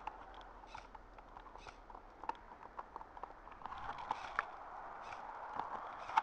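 Faint crunching and rustling of a person shifting about in snow, with a few scattered sharp clicks.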